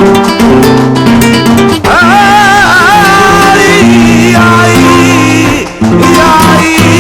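Background music in flamenco style: plucked acoustic guitar, with a singing voice coming in about two seconds in.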